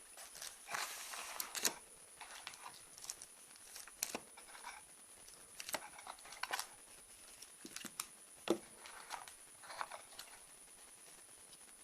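A parcel being opened by hand: scattered crinkling, rustling and tearing of packaging with occasional taps and clicks. The loudest is a sharp tap about eight and a half seconds in.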